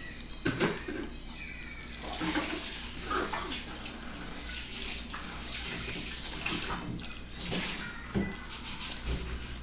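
A person chewing a mouthful of food, with wet smacking and short clicks of the lips and tongue.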